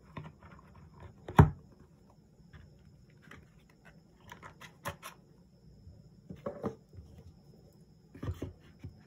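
Cardboard phone packaging being handled and set down on a wooden table: scattered taps, knocks and rustles, the loudest a sharp knock about a second and a half in.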